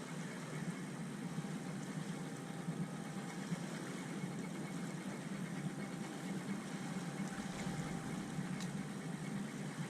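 A boat engine running steadily, a low even hum.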